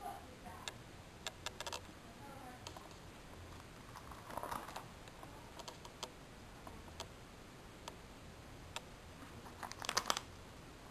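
Clear plastic trading-card binder sleeves being handled: scattered small clicks and crinkles, with a louder burst of crinkling near the end as the hand works the pages.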